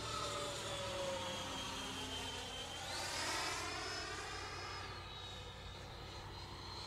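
Electric ducted fan of a radio-controlled MiG-17 jet whining in flight. Its pitch sinks slowly, rises sharply about three seconds in, and falls back a couple of seconds later.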